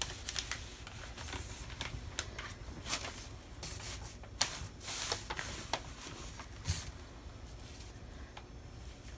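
Butcher paper and a t-shirt rustling and brushing as hands slide and smooth them on a heat press platen, in short scattered rustles that thin out in the last couple of seconds.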